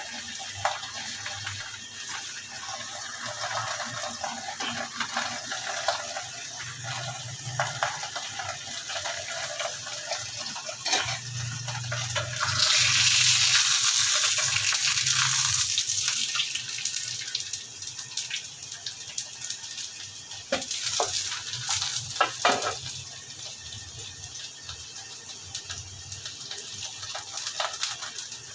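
Paratha frying in hot oil on a pan, a steady crackling sizzle. About twelve seconds in the sizzle surges to a loud hiss, then dies back down over the next several seconds. A few sharp clicks come near the end.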